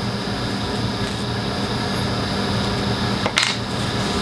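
A small metal clipper-blade part clinks once onto a hard surface about three seconds in, over a steady machine hum.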